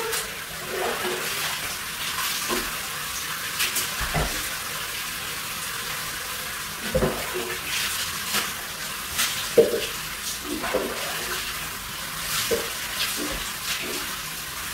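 Water running from a shower mixer tap into a plastic basin, a steady hiss. Several sharp knocks and splashes come through it as a plastic jug is dipped into the basin and handled.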